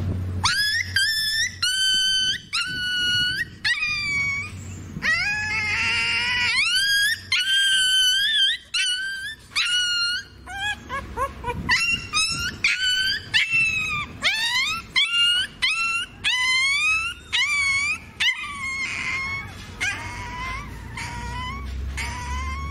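Puppy with a mango worm infestation crying: a long run of shrill whining yelps, one after another, each rising and then falling in pitch, growing fainter near the end.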